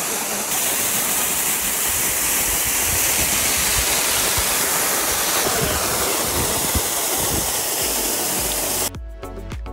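Waterfall water pouring and splashing: a loud, steady rushing noise. It cuts off about nine seconds in, when music with a beat starts.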